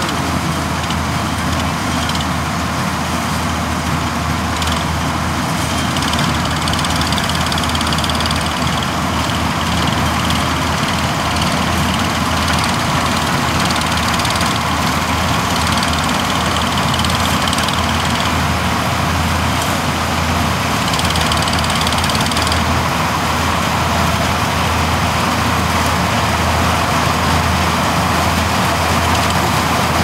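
Crop Star NSG 930 combine harvester running at work, cutting and threshing paddy: a steady, loud machine drone, with a higher hiss that swells and fades a few times.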